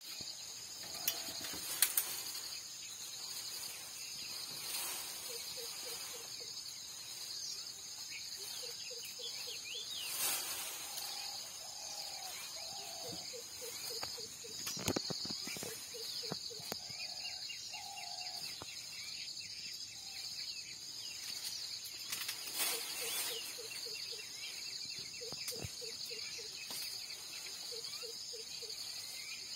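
Steady high insect drone, with a bird repeating a short run of low, evenly spaced notes every few seconds and other birds calling. A few sharp cracks stand out, the loudest about two seconds in.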